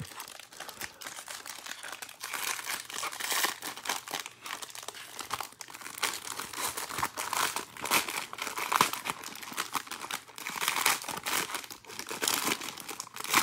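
Foil wrapper of a Bowman Draft trading card pack being torn open and crinkled by hand: a dense run of crackles and crinkles, with a few louder tears.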